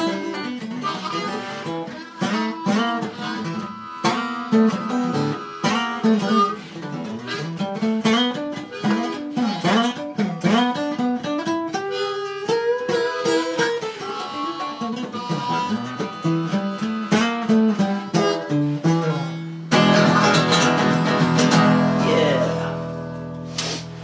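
Acoustic guitar and harmonica playing a blues instrumental: picked guitar notes under bending harmonica lines. About 20 seconds in they hit a long held final chord that fades away.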